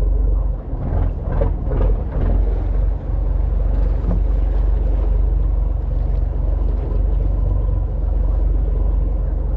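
Fishing boat's engine running, a steady low rumble with a faint constant hum above it.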